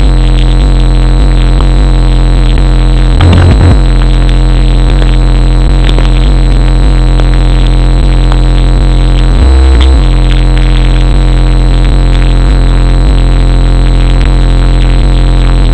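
Bass-heavy music played very loud through a 15-inch DB Drive Okur K9 car subwoofer, overloading the recording into distortion. Deeper bass surges come about three seconds in and again about nine and a half seconds in.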